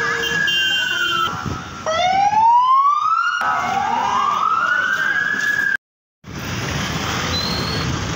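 A siren wailing in long rising sweeps, three in a row. It cuts off abruptly about six seconds in, leaving the steady noise of street traffic.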